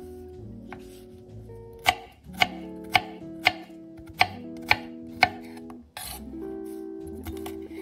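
Chef's knife chopping green capsicum on a wooden cutting board: a run of about seven sharp knife strikes on the board, roughly two a second, starting about two seconds in, over soft background music.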